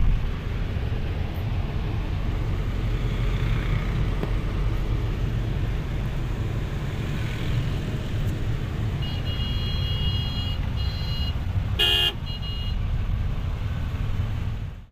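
Steady low rumble of a moving vehicle heard from inside its cabin on a rain-soaked road. Vehicle horns sound a few short toots around nine to eleven seconds in, then one short loud blast about twelve seconds in.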